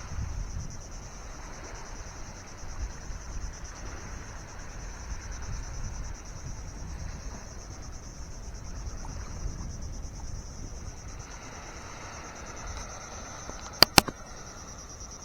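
Steady high-pitched insect chorus, like crickets, chirring without a break, over a low rumble of wind on the microphone. Near the end, two sharp clicks in quick succession stand out as the loudest sounds.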